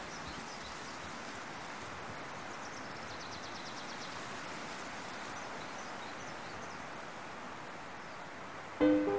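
Outdoor ambience: a steady soft hiss with faint scattered bird chirps and a short, rapid, high trill about three seconds in. Plucked ukulele music starts sharply near the end.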